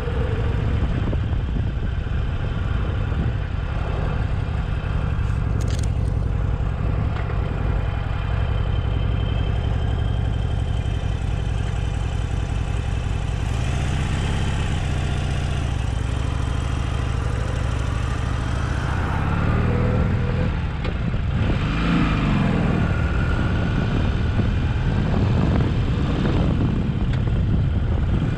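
Harley-Davidson Forty-Eight's V-twin engine running as the motorcycle is ridden, heard from the rider's seat. The engine note rises and falls a few times in the second half as the bike speeds up and slows.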